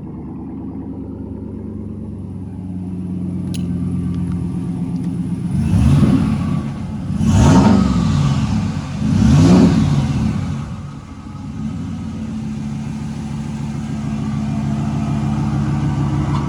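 2021 Ram 1500's 5.7-litre Hemi V8 running through a newly fitted Borla ATAK cat-back exhaust: steady idle, three quick revs about six, seven and a half and nine and a half seconds in, then back to idle.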